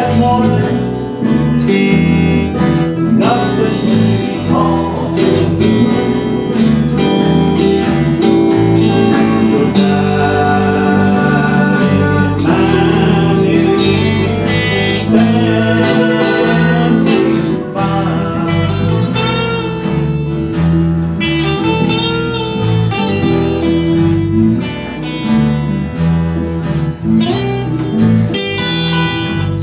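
Acoustic string band playing a slow tune: mandolin picked over guitars and bass.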